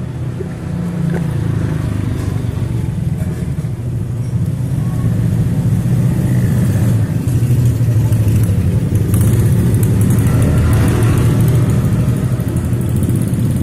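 Motorcycle engines running close by in street traffic: a steady low rumble that grows slightly louder partway through.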